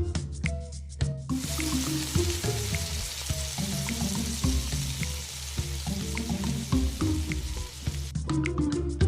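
Food sizzling in a frying pan, starting about a second in and stopping about a second before the end, over salsa music with a steady beat.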